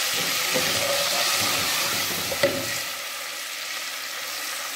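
Onion, ginger-garlic and spice masala sizzling in hot oil in an aluminium pot, with a little water just added. A wooden spoon stirs it, knocking against the pot about half a second in and more loudly near two and a half seconds. The sizzle settles a little after about three seconds.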